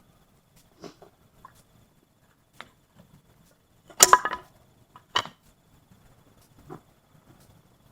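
Firewood cracking and snapping in scattered sharp clicks, loudest in a cluster of cracks about four seconds in and another about a second later.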